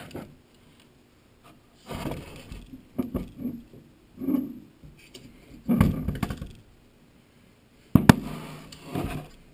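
Metal parts of a disassembled Doerr electric motor being handled on a wooden workbench: a run of knocks, clunks and short scrapes as the housing, end bell and rotor are turned over, shifted and set down. The sharpest knock comes about eight seconds in.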